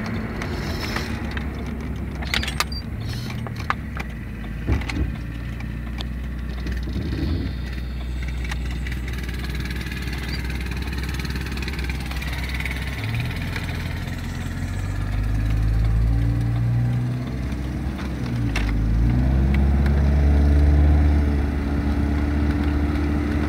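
Car engine and road noise heard from inside the cabin while driving at about 40 mph, a steady low rumble. The engine note climbs and grows louder in the second half. A few sharp knocks come in the first five seconds.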